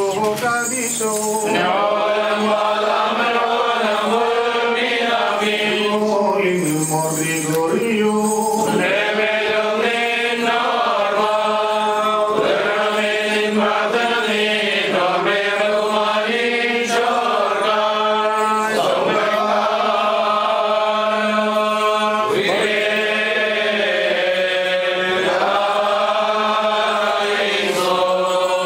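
A group of men chanting a liturgical hymn together in a continuous melodic line, with a steady low note held beneath the melody.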